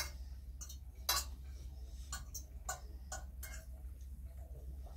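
Eating sounds at a meal: irregular soft clicks and taps, roughly two a second, over a low steady hum.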